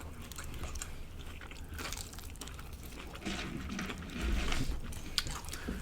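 Crunchy biting and chewing close to the microphone: a steady string of crisp crackles and crunches.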